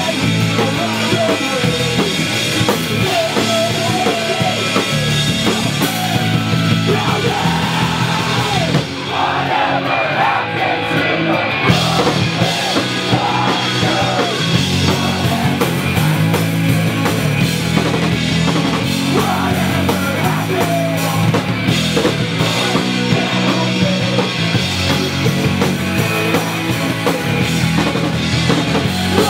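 Live post-hardcore/pop-punk band playing through a small-venue PA: distorted electric guitars, bass and a drum kit, with shouted, sung vocals. About nine seconds in the cymbals drop out for roughly three seconds, then the full band comes back in.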